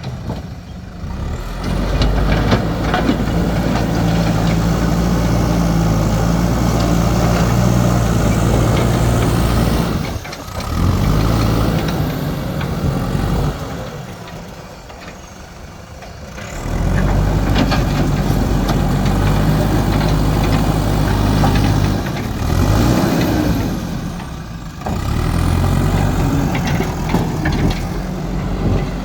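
Heavy diesel engine of construction machinery working under load, revving up for long stretches and dropping back toward idle three times.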